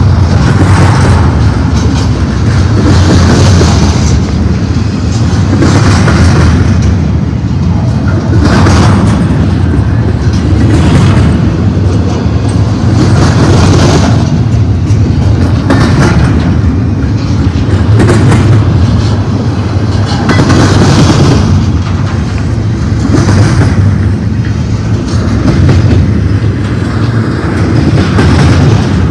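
Double-stack intermodal freight train's well cars rolling past close by: a loud, steady rumble of steel wheels on rail, with a clatter that swells about every two and a half seconds.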